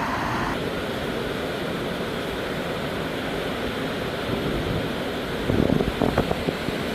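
Steady rushing noise of water, with wind on the microphone and a few louder bursts about five and a half to six seconds in.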